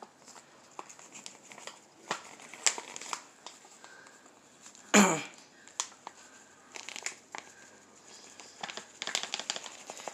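Plastic bag of sweet potato starch crinkling as it is handled and emptied into a pan, in scattered short crackles, with one louder thump about five seconds in.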